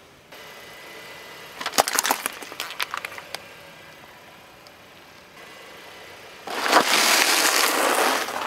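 A car tyre crushing objects on asphalt: a quick run of sharp cracks and snaps about two seconds in, then near the end a loud, dense crunching as a cardboard cereal box and the cereal spilling from it are flattened.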